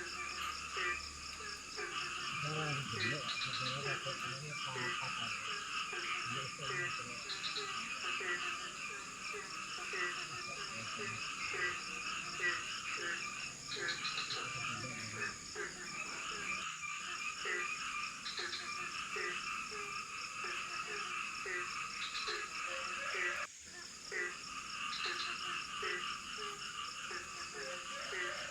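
Tropical forest frog chorus: many frogs calling at once in dense, overlapping croaks that repeat several times a second, over a steady high-pitched insect drone. The chorus briefly drops out and resumes about three-quarters of the way through.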